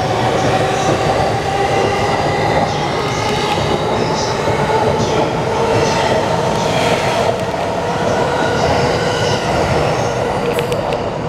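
JR East E231-series suburban electric train, with renewed traction equipment, accelerating past on departure. The traction motor whine rises slightly in pitch and then holds, over the rolling noise of the wheels, with an occasional clack from the rail joints.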